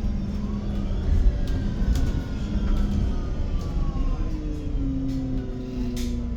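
Inside a MAN Lion's City 12 EfficientHybrid CNG bus: low drivetrain rumble with several whining tones that slide slowly down in pitch, with a few light rattling clicks. The falling whine is typical of the bus slowing down.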